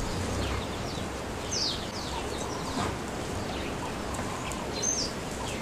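Outdoor bush ambience: a steady rustling hiss with a few short, high bird chirps, about a second and a half in and again near the end.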